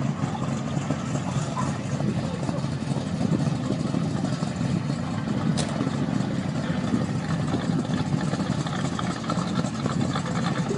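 Drag-racing car engine idling with a steady low rumble that pulses unevenly, with a brief click about halfway through.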